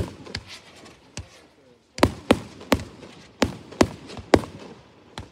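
Aerial firework shells bursting: a bang at the start and another about a second in, then a quick run of about eight bangs over the next three seconds.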